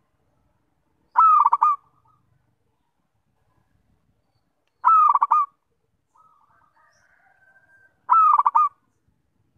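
Zebra dove (perkutut) singing: three loud bursts of rapid, quickly repeated coos, each shorter than a second and spaced about three and a half seconds apart, with fainter calls between the second and third.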